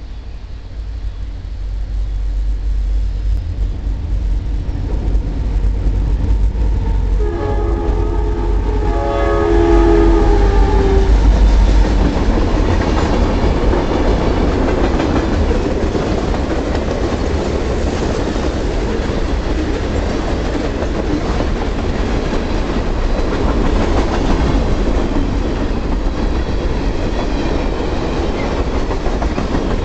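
Freight train led by an EMD SD70 diesel locomotive approaching and passing close by. Its rumble builds, and a horn blast of about three seconds sounds some seven seconds in. Then the locomotive goes by and a long string of tank and hopper cars rolls past with a steady rumble and clatter of wheels on rail.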